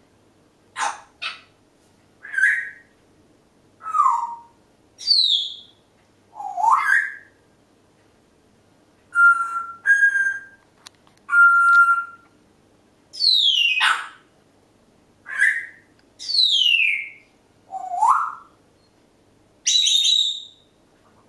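Congo African grey parrot whistling a string of short separate calls with brief pauses between them. Some calls sweep up in pitch, some sweep down, and a few in the middle are steady held notes.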